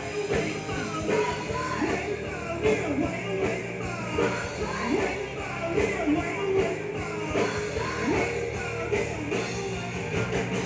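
Live rock band playing a song, a singer's voice over electric guitar and drums.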